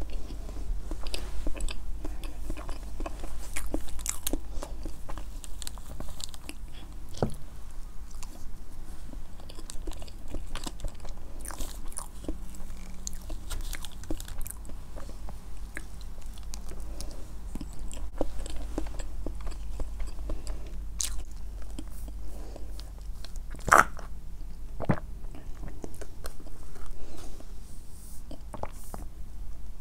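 Close-miked eating of a soft sakura chiffon cake with whipped cream: chewing with many small wet mouth clicks and smacks, and a fork working through the cake. Near the end, a couple of sharper clicks stand out.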